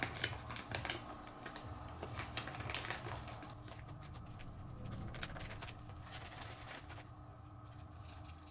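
Faint, irregular light clicks and taps of small tools and parts being handled, thinning out after about three seconds, over a steady low hum.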